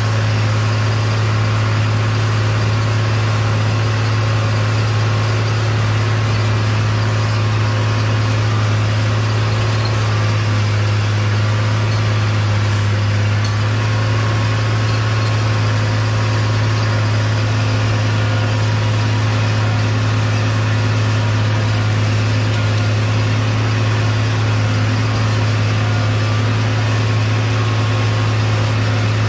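Oliver 1850 tractor engine running steadily under heavy load, pulling a moldboard plow through old sod. The engine hum holds an even pitch throughout.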